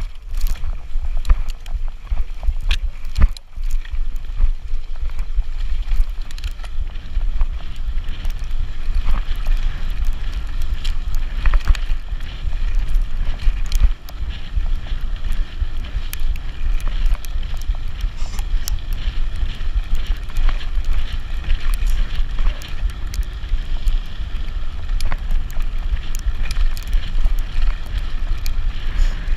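Wind buffeting the microphone of a camera mounted on a fast-moving e-bike, with frequent clicks and rattles from the bike jolting over a forest dirt trail.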